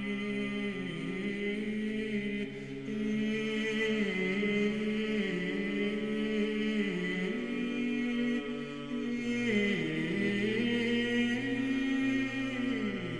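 Background music: a slow vocal chant, long held notes that step slowly up and down in pitch.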